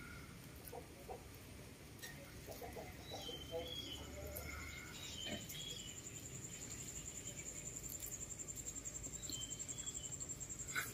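Quiet outdoor ambience: a few short, high bird-like chirps, then a thin, high insect trill that starts about four seconds in and pulses about five times a second.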